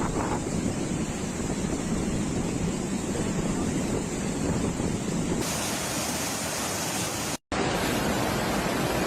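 Floodwater rushing, a steady noisy wash with wind buffeting the microphone. The sound changes abruptly about five seconds in and breaks off for an instant shortly before the end, then resumes.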